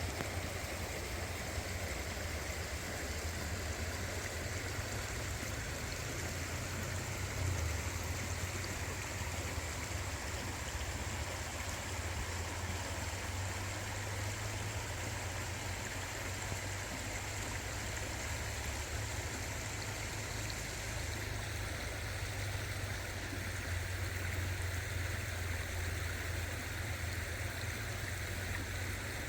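Creek water flowing steadily, an even rushing hiss with a low rumble underneath.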